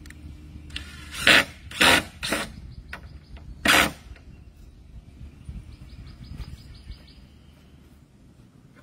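Cordless drill driving screws into cedar fence boards in four short loud bursts, the trigger pulsed to set each screw. A bird trills faintly in the background.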